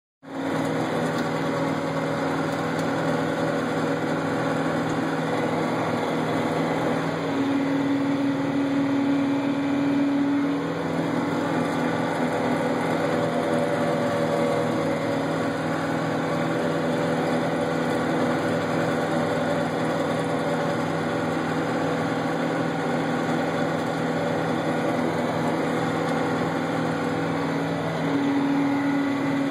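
Engine of a CASE machine running steadily while blowing snow, its note shifting twice: once for a few seconds about a quarter of the way in and again near the end.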